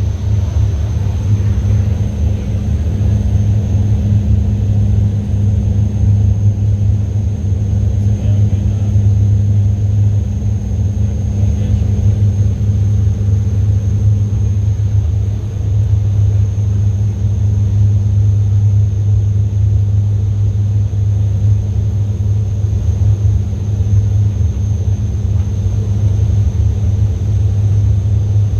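Steady low rumble of a car on the road, heard from inside the moving car: engine and road noise.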